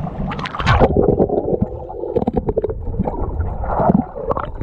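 Water sloshing and gurgling around a handheld action camera at the waterline. After about a second the camera goes under, and the sound turns muffled and bubbly.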